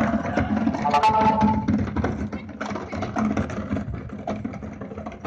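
Go-kart and towed plastic wheelie bin rattling and crunching over a gravel track as they roll downhill, growing fainter as they move away.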